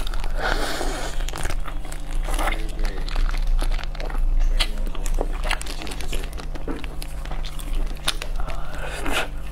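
Close-miked eating of a crisp roast chicken: skin and meat tearing, bites and chewing, made of many short sharp crackles, with the rustle of plastic gloves. A steady low hum runs underneath.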